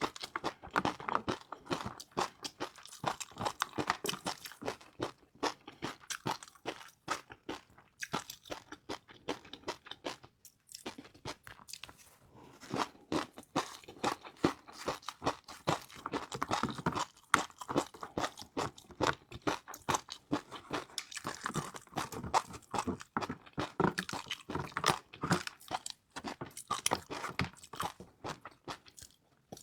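Close-miked crunching and chewing of crispy fried noodles: dense, irregular crackling bites that keep going, with short pauses about ten seconds in and again near seventeen seconds.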